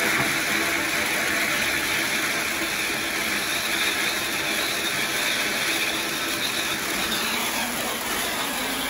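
Spark-fountain firework strapped to the top of a camera drone, hissing steadily as it sprays sparks, over the whir of the drone's propellers; the drone lifts off with it near the end.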